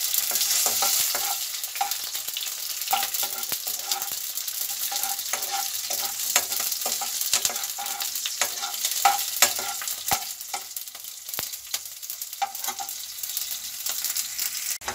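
Slit green chillies and mustard seeds sizzling in hot oil in a kadai for a tadka, with a steel ladle stirring and scraping against the pan. Many sharp little clicks and pops run through the steady hiss.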